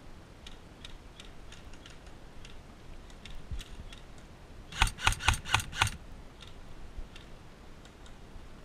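Airsoft gun firing a quick string of about seven shots, roughly six a second, about five seconds in, with fainter scattered shots popping before and after.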